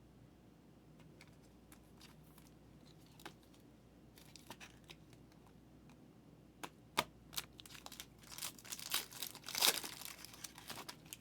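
A trading-card pack's foil wrapper being torn open and crinkled, with sharp clicks and rustles. It starts after a few quiet seconds and is busiest near the end.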